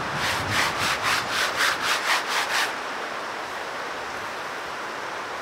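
A hand brushing sawdust off the freshly chainsawn face of a large oak log round: about a dozen quick rubbing strokes over two and a half seconds, which then stop.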